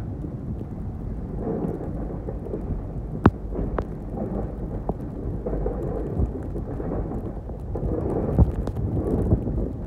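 Snow plow truck driving and pushing snow with its front blade, heard from inside the cab: a steady low rumble of the truck and the blade scraping through snow. A couple of sharp knocks come about three seconds in, and another comes near the end.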